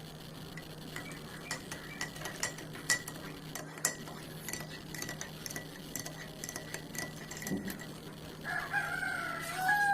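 Light clinks and taps of kitchenware, a spoon against a cup or pot, scattered over several seconds above a faint steady hum. Near the end comes a short wavering animal call.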